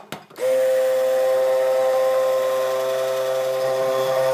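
Red immersion (stick) blender motor starting about half a second in and then running at a steady pitch, its blade working through thick homemade mayonnaise in a glass measuring jug to make it very smooth.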